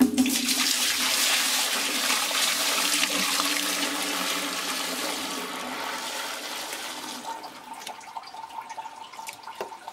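Wort pouring in a steady stream from a metal milk can into a wooden fermenting barrel, splashing onto the liquid already in it. The pour starts suddenly, is loudest over the first few seconds and fades away toward the end.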